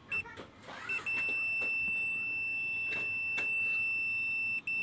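Digital multimeter's continuity buzzer beeping as the probe touches the circuit board: two short beeps, then from about a second in a steady high beep that holds until near the end. The unbroken tone shows the probed point near the HDMI IC is shorted.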